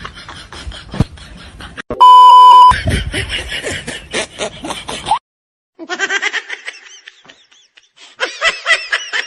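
A loud, steady electronic beep lasting under a second about two seconds in, followed by quick repeated bursts of laughter, with a sudden cut to silence for about half a second midway.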